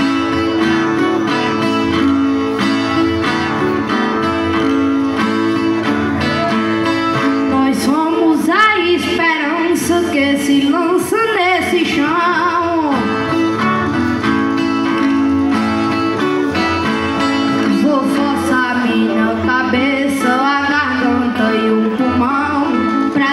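Two Brazilian violas played in a repente cantoria accompaniment, a steady plucked and strummed pattern. A voice sings a verse over them from about eight seconds in, and comes in again near the end.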